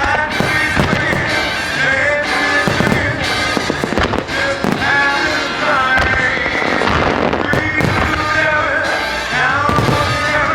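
Starmine fireworks display: a rapid barrage of shells bursting and cracking many times throughout, over music played through outdoor loudspeakers.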